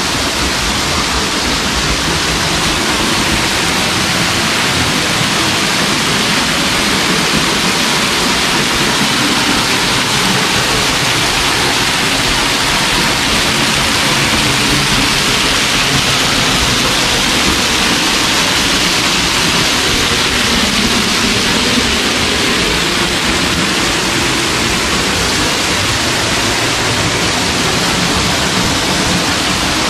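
Grotto Falls, a waterfall, pouring onto rock close by: a loud, steady rush of falling water with no breaks.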